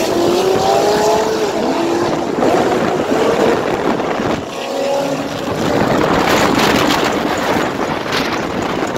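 Procharger-supercharged Corvette V8 accelerating hard at full throttle. The pitch climbs and drops back at each gear change, with a brief dip a little past halfway, and then gives way to a dense rush of engine and wind noise.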